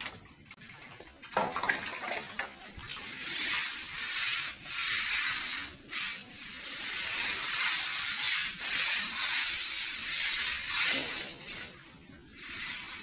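Hand scrubbing on a foam mattress's cloth cover: repeated long, hissing rubbing strokes, pausing briefly a few times.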